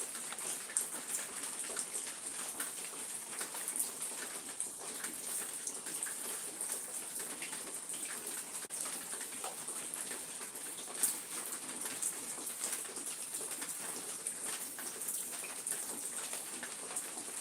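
Outdoor nature ambience: a steady high hiss with many small, scattered ticks and patter.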